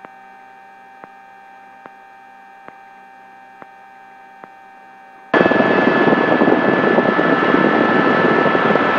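Helicopter sound in flight, as heard in the cockpit. For about five seconds there is only a quiet steady hum of several even tones with faint ticks about once a second. Then, a little past the halfway point, loud rushing turbine and rotor noise with a steady high whine cuts in abruptly.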